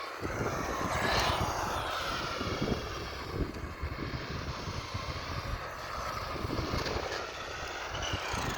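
Electric RC car motor whining as the car drives, its pitch rising and falling as it speeds up and slows down.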